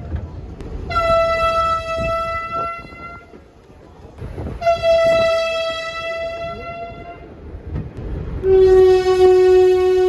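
Train horn sounding three long, steady blasts on one high tone, each about two seconds, with short gaps between. Near the end a lower tone comes in, and the high tone joins it in a two-note chord.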